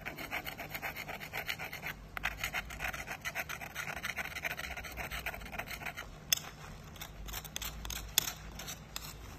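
Stainless-steel spoon scraping solidified phase-change material off a concrete floor in rapid repeated strokes. The strokes thin out after about six seconds, with two sharp knocks near the end.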